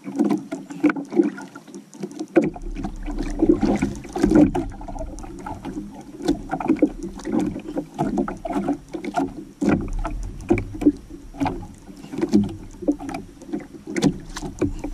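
Seawater slapping and lapping against the hull and outrigger floats of a small outrigger canoe, choppy and irregular, with frequent short sharp ticks and knocks. A low rumble comes in after about two seconds.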